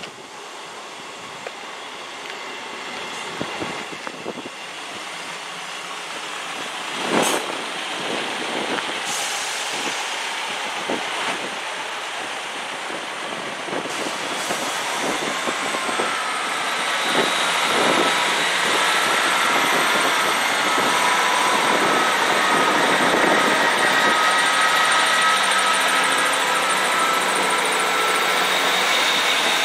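GWR Class 158 diesel multiple unit running past, its underfloor diesel engines and wheels on the rails growing steadily louder as it nears. There are sharp clicks of wheels over rail joints, and several steady high whining tones come in over the second half.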